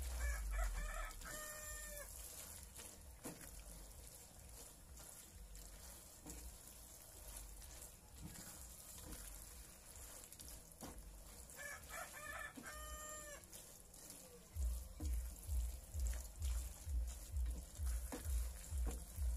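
A rooster crowing twice, once just after the start and again about twelve seconds in. From about fifteen seconds on, low soft thumps about twice a second come from the pasta being stirred in the pan.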